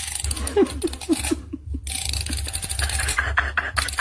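Tabby cat eating a treat from a hand, with a quick run of short, low falling sounds about a second in, six or seven in a second and a half.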